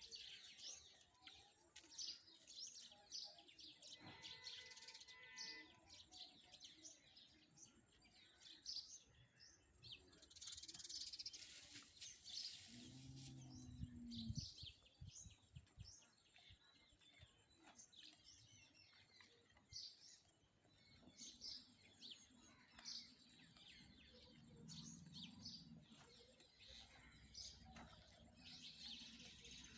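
Faint chirping of small birds, many short high calls throughout, with a brief hiss about eleven seconds in.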